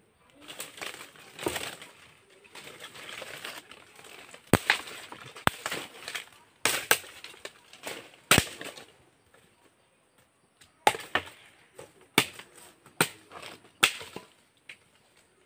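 A blade chopping into bamboo: a dozen or so sharp, irregularly spaced strikes, after a stretch of rustling at the start.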